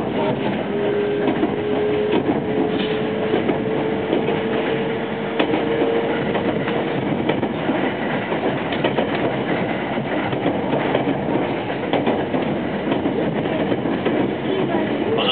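Toshiba-equipped JR West 225 series electric train running, heard from inside the passenger car: steady wheel-on-rail noise with occasional clacks. A motor whine rises slowly in pitch over the first half, then fades out.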